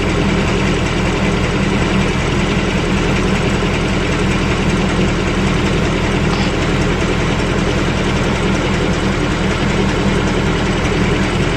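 Third-generation Ford Coyote 5.0 V8 in a Mustang GT idling steadily. The owner suspects it of a light, intermittent tick, a subdued version of the Coyote engine tick.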